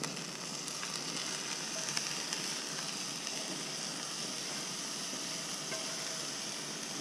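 Chopped fish mixed with herbs and seasoning sizzling steadily in a hot non-stick pan with a splash of water, with a few light scrapes as it is tipped in from a bowl.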